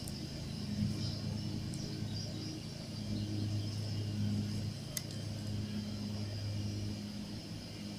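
A steady low engine drone that swells and eases slightly, with a faint high hiss over it and one sharp click about five seconds in.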